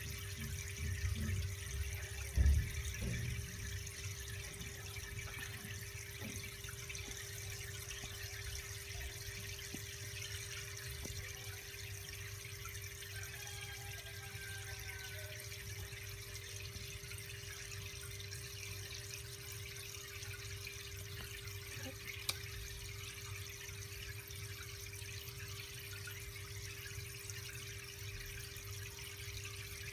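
Aquarium filter running: a steady trickle of water with a constant motor hum. There is a dull thump about two and a half seconds in.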